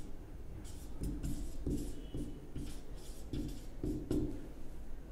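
Felt-tip marker writing on a whiteboard: a run of short, irregular scratching and squeaking strokes as words are written out.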